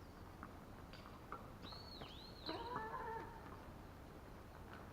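A bird calling faintly: two quick arching whistled notes about two seconds in, then a lower wavering phrase.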